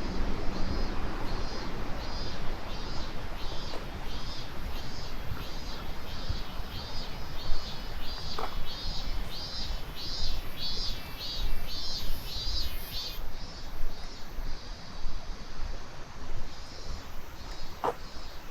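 A high-pitched animal call repeated as a fast, even run of short chirps, about two to three a second, fading out after about thirteen seconds, over a steady rushing noise. Two sharp knocks come about eight seconds in and near the end.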